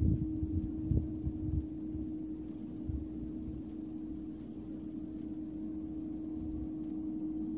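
Case IH 2388 combine harvester running as it cuts oilseed rape, a steady droning hum over a low rumble. A few low thumps come in the first second and a half.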